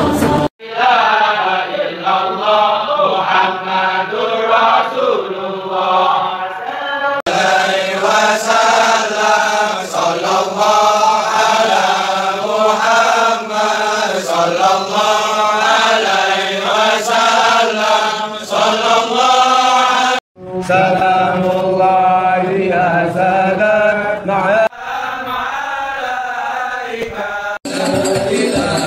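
Men chanting Islamic devotional verses in a melodic, wavering line, in several short clips joined by abrupt cuts.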